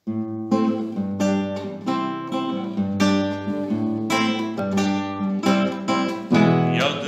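Acoustic guitar strumming chords in a steady rhythm, about two strokes a second, as an instrumental intro.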